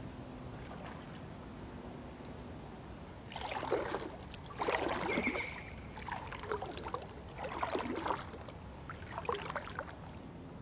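A double-bladed paddle dipping into calm river water beside an inflatable packraft, a short splash and drip with each stroke, about one every second or so, starting a few seconds in over a low steady background.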